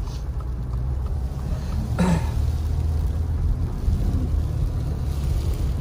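Steady low road and engine rumble inside a slowly moving car. About two seconds in comes one short cough-like sound from someone in the car.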